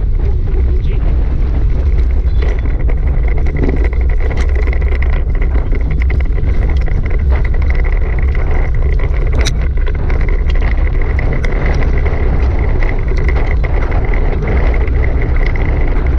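Heavy wind buffeting on an action camera's microphone at about 30 km/h, over the dog scooter's tyres rolling on a dirt track, with many small clicks of grit and a thin steady high whine.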